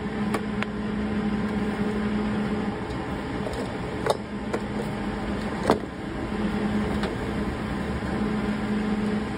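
Welder tack-welding a sheet-steel patch panel: a steady electric buzz in three stretches of two to three seconds each, with a few sharp clicks between.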